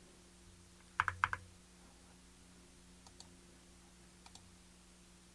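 A quick run of three or four computer keyboard keystrokes about a second in, then a few faint single clicks, over a faint steady hum.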